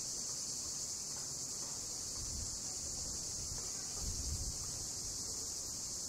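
A chorus of cicadas making a steady, unbroken high-pitched drone. A few faint low rumbles come in about two and four seconds in.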